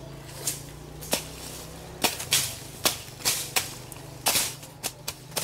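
Grass being slashed by hand with a bolo: quick, irregular sharp swishing cuts, roughly two a second.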